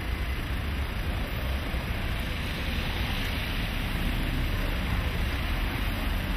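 Steady city street traffic noise: a low rumble under an even hiss, with vans passing close by.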